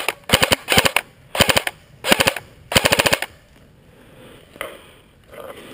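Airsoft rifle firing about six short full-auto bursts of rapid clicks over roughly three seconds, then stopping.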